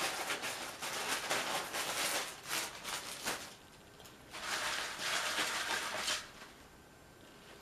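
A plastic squeeze bottle sputtering and squirting sauce over a bowl of nachos, a crackly run of short spurts. About two-thirds of the way in there is a shorter hissing rustle.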